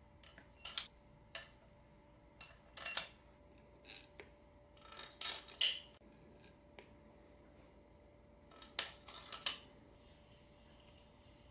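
Metal clinks and clatters of steel case bolts and washers being handled and slid into a Subaru EJ22T engine case, in several short bursts. The loudest burst comes about halfway through.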